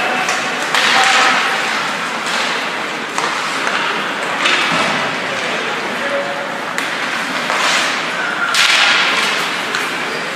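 Ice hockey skates scraping and carving on the rink ice: a run of sudden hissing scrapes every second or two, mixed with the knock of sticks and puck.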